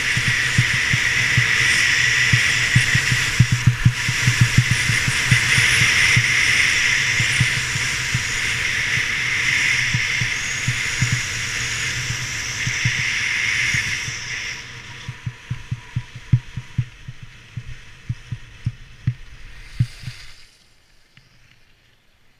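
Skis sliding over snow make a steady hiss. Wind buffets the camera microphone with irregular low thumps. The hiss drops off sharply about two-thirds of the way through as the run slows, a few thumps carry on, and then it all stops near the end.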